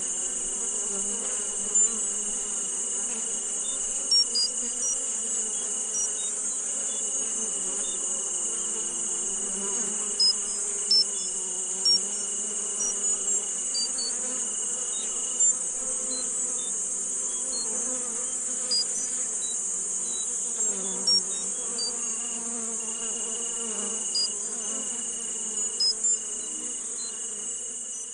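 An insect chorus: a steady high-pitched buzzing hiss, with short chirps scattered through it and a thin high whistle-like tone that drops out and returns now and then.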